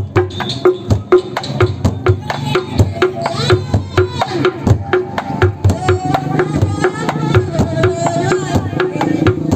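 Bedug, a large mosque drum, beaten in a steady fast rhythm of sharp strikes, about three or four a second, in the drumming played for takbiran.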